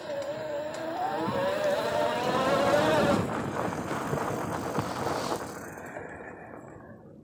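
A small ride-on vehicle's motor whining and rising in pitch as it speeds up the trail, with rough tyre-on-gravel noise; the sound fades away near the end.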